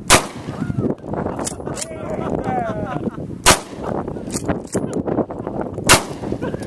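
Three 12-gauge shotgun shots, sharp reports about two and a half seconds apart.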